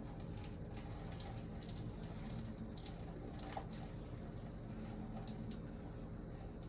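Water and a little grease being poured off a pot of simmered ground turkey into a kitchen sink, trickling and splashing.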